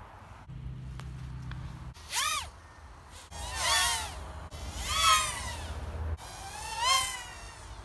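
Micro FPV racing quadcopter's motors whining in four throttle bursts, the pitch of each rising and then falling.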